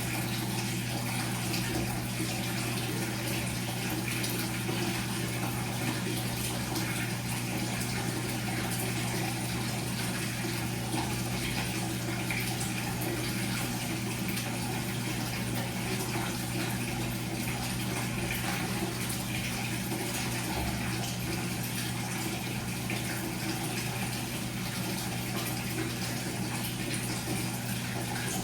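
Washing machine running steadily: a continuous rush of water over a constant low hum from the machine.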